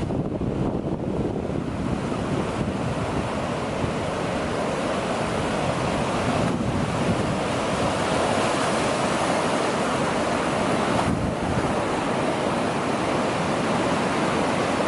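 Sea surf breaking and washing on a beach, a steady rushing that swells a little partway through, with wind buffeting the microphone.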